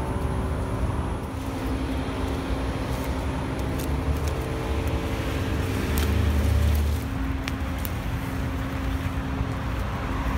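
Motorway traffic: a steady low rumble of cars and engines, swelling louder as a vehicle passes close about six to seven seconds in, with a few short sharp clicks.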